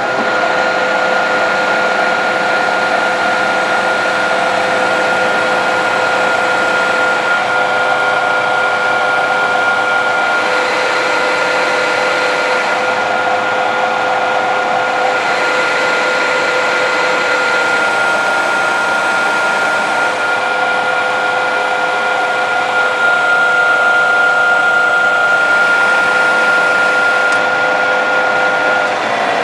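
Metal lathe running with a steady whine while taking a light skim cut along the outside of a 7075-T6 aluminum link bar.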